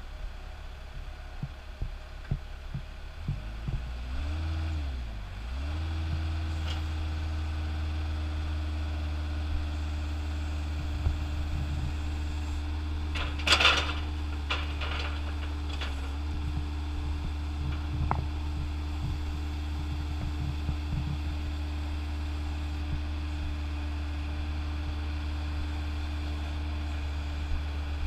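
Caterpillar 903C compact wheel loader's diesel engine revs up and down a few seconds in, then runs at a steady higher speed while the loader arms with pallet forks are raised and lowered. A short, sharp clatter comes about halfway through.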